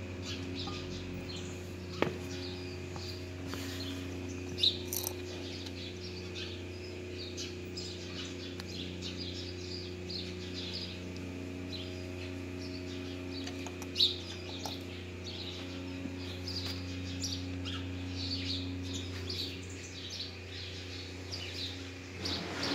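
Small birds chirping busily over a steady low hum, with a few sharp knocks about 2, 5 and 14 seconds in.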